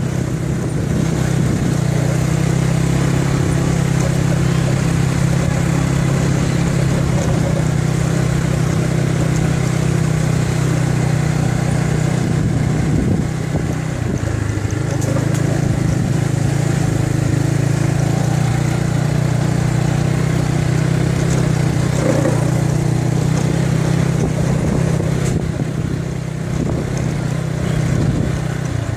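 Motorcycle engine running steadily while riding at low cruising speed, with a short easing of the engine note about halfway through before it picks up again.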